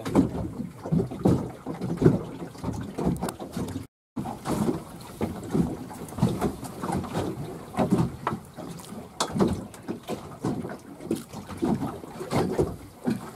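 Choppy water slapping unevenly against a small boat's hull, with wind gusting on the microphone. The sound cuts out briefly about four seconds in.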